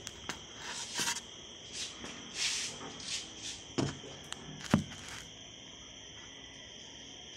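Rustling and a few thumps from a phone carried against the body, the two loudest thumps about four and five seconds in, over a steady high-pitched chirring in the background.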